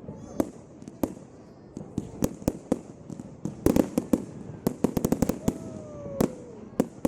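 Fireworks going off at a display: a series of sharp bangs, with quick volleys of crackling reports around the middle and a falling whistle near the end.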